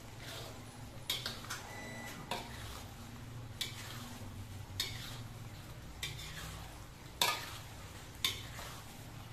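Metal spatula scraping and knocking against a metal wok as tempe balls in a thick sauce are stirred, in about eight irregular strokes, the loudest about seven seconds in.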